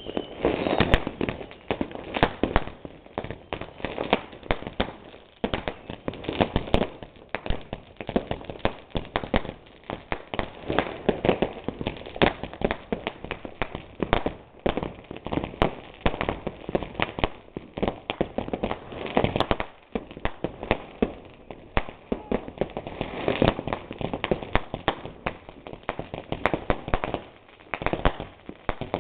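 Many firecrackers and fireworks going off at once: a dense, continuous stream of bangs and crackling, some much louder than others.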